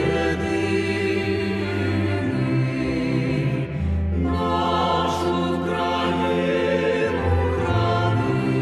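Slow choral music: a choir holding long chords that change every second or two.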